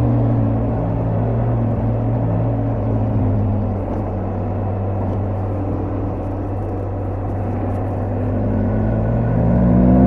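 BMW R1250GS Adventure's boxer-twin engine and exhaust running steadily under way, its note rising near the end as it picks up revs.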